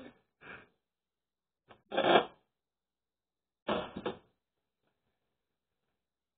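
A few short clatters and bumps of kitchen handling, such as cupboards, utensils or cookware being moved, the loudest about two seconds in.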